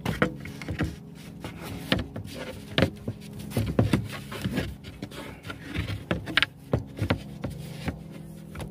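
Plywood bed-platform panels being slid, bumped and pressed into place, giving a string of wooden knocks and scrapes. A steady low hum runs underneath.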